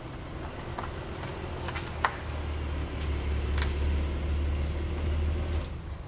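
A car engine running low and steady, coming in just after a sharp click about two seconds in and stopping abruptly shortly before the end, as the car pulls up and is switched off. Faint scattered ticks sound throughout.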